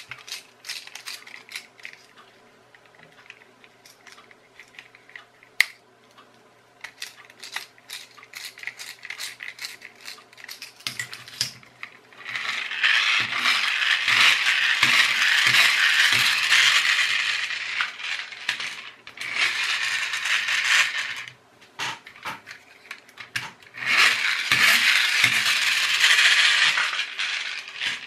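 Small clicks of a screwdriver and plastic toy parts being handled, then a toy tractor's friction flywheel motor whirring loudly with a gear rattle as the tractor is pushed along and let run. This comes in two long spells, starting about halfway and again near the end. The transplanted flywheel motor is working.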